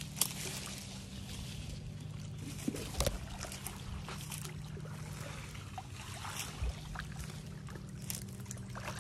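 Water splashing and sloshing as a person wades through a shallow, weedy pond, with a few sharper splashes, one near the start, one about a third of the way in and one about two-thirds in. A steady low hum runs underneath.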